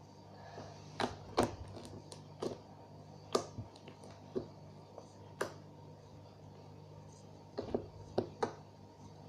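Slime being played with for ASMR, giving a string of irregular sharp pops and clicks, some in quick pairs, over a faint steady low hum.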